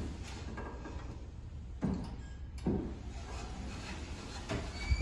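Automatic sliding entrance door moving on its track, with a low steady hum and a few soft clunks about two, three and four and a half seconds in.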